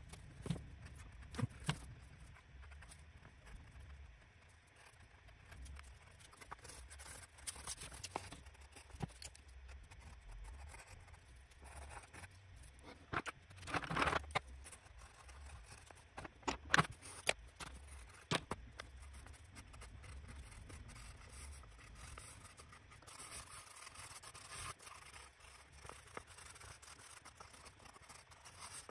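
Colored pencils scratching on paper in short strokes, with a few light clicks and taps between them. The scratching is louder for a stretch about halfway through and again near the end.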